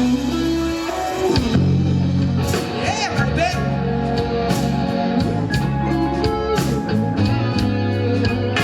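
Rock-style band music with electric guitar, bass and drums, the guitar playing sliding bends.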